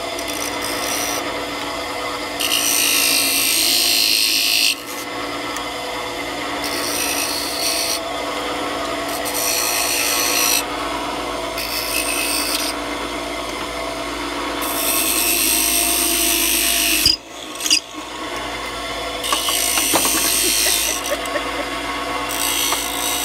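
Wood-turning lathe running with a steady hum while the spinning wooden spinning-wheel bobbin is worked by hand, repeated rasping scrapes of a second or two each as a turning tool and abrasive are pressed against it. The sound briefly cuts out about three quarters of the way through.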